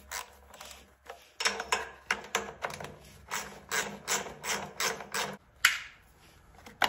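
Ratchet wrench clicking in a steady run of strokes, about three a second, as 8 mm bolts holding a guard on a small generator engine are backed out. A couple of sharper single clicks follow near the end.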